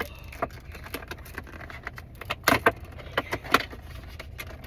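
Handling noises from a squishy toy: a run of small clicks and rustles, with a few sharper snaps about halfway through.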